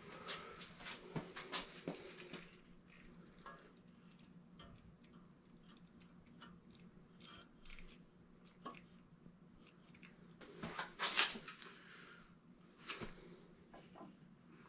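Faint metal clinks and taps as an engine bedplate is handled over the block, then a short cluster of louder clacks about eleven seconds in as it is set down onto the block.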